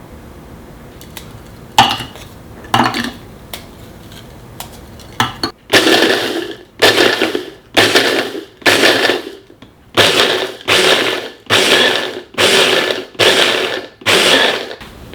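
Kitchen blender or food processor motor run in about ten short pulses, each a fraction of a second, after two sharp knocks.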